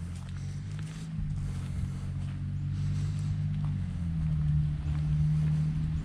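A motor vehicle's engine hum, low and steady, growing gradually louder as it draws nearer.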